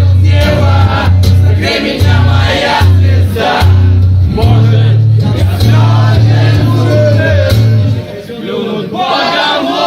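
Live band music with a loud, pulsing bass line and singing voices over it; the bass drops out about eight seconds in.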